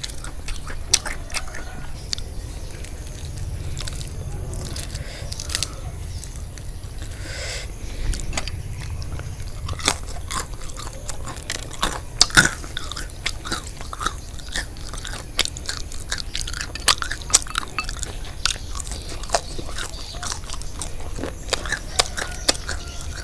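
Close-up chewing and biting of deep-fried frog in corn-flour batter, the crisp batter crunching, with frequent short sharp clicks throughout.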